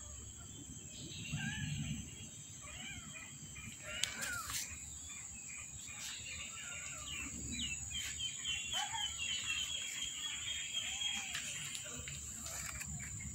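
Young kittens mewing in short, thin calls, again and again, over a steady high-pitched drone.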